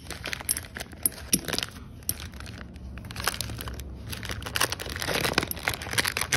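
Paper microwave popcorn bag being torn open and crinkled by hand, a dense, irregular crackling.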